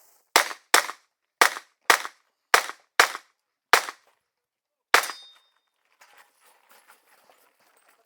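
Competition revolver fired eight times in quick succession, unevenly spaced over about four and a half seconds as the shooter moves between targets, with a longer pause before the last shot; faint small clatter follows.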